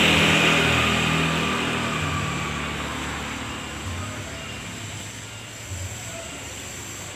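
A motor vehicle's engine passing, loudest at the start and fading steadily as it moves away.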